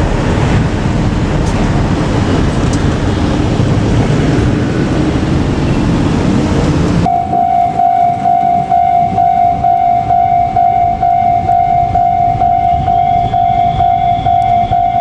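JR Kyushu 817-series electric train running past over the level crossing with a loud rumble. About seven seconds in the sound changes abruptly to a level-crossing alarm bell ringing steadily at about two strikes a second.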